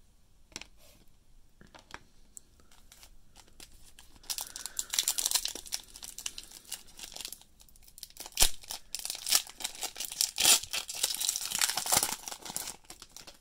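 Foil wrapper of a 2020 Prizm collegiate football card pack crinkling as it is handled and then torn open. The crinkling comes in two stretches, from about four seconds in and again, louder, from about nine seconds to near the end, with one sharp snap a little after eight seconds.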